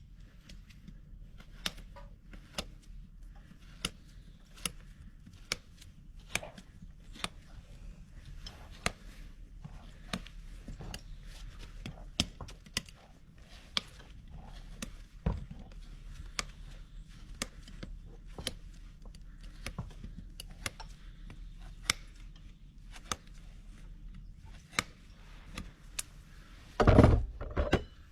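A farrier's hand tools working on a Shire horse's hoof during a trim: irregular sharp clicks and snips, about one or two a second. A heavier thud comes near the end.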